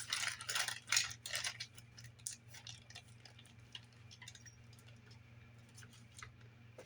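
Light clicks and rattles of small hard objects being handled, busiest in the first second or so, then sparse, over a steady low hum.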